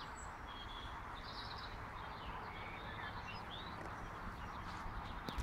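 Songbirds chirping and twittering in short scattered calls over a steady rushing background of flowing river water.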